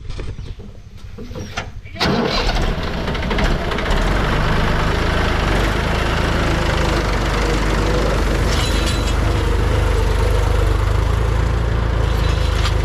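Heavy diesel engine that comes in loudly about two seconds in, after a quieter, uneven stretch, and then runs steadily.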